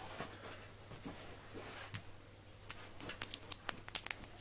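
Kittens' claws clicking and scrabbling on a plastic laundry basket: soft rustling at first, then from about halfway a quick, irregular run of sharp little clicks.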